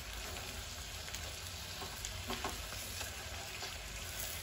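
Large masala-coated fish pieces shallow-frying in oil in an aluminium pot on a lowered flame: a steady, gentle sizzle with a few faint pops.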